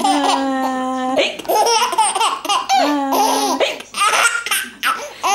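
Baby laughing in repeated bursts of high-pitched squeals and giggles, set off by an adult saying "hick".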